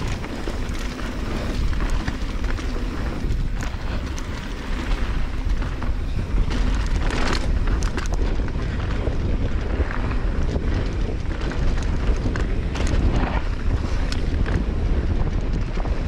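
Heavy wind buffeting on the microphone of a mountain bike riding a dirt trail, with frequent short knocks and rattles from the bike and tyres over rough ground.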